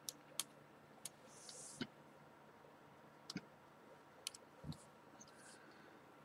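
Faint, scattered sharp clicks and light taps as small phone parts and screws are handled during reassembly, with a brief soft rustle about a second and a half in.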